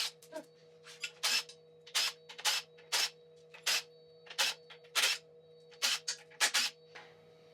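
Hand ratchet clicking in short strokes, about two a second, some in quick pairs, as it turns the forcing screw of a harmonic balancer puller on a Chevy 454 big-block engine.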